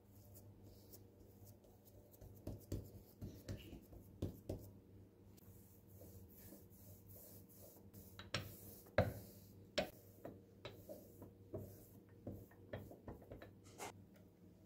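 Wooden rolling pin rolling out pie dough on a floured countertop: soft rubbing with irregular light knocks and clicks as the pin is pushed and set down, the loudest about nine seconds in.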